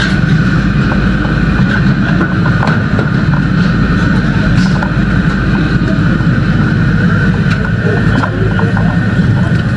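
Engine running steadily and loudly, a deep drone with a steady whine above it and a few light knocks scattered through it.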